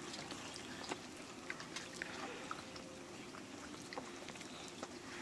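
Quiet eating by hand from metal plates: a few faint, scattered clicks and scrapes of fingers and rice against the metal, over a low steady hiss.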